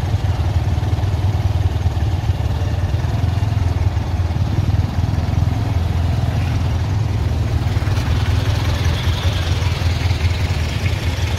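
Engines of off-road jeeps running steadily at crawling speed, a continuous low rumble.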